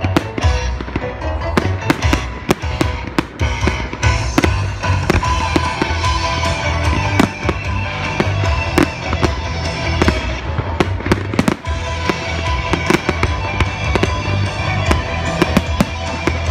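Aerial fireworks shells bursting in rapid succession, sharp bangs several a second with crackling, over music playing along with the display.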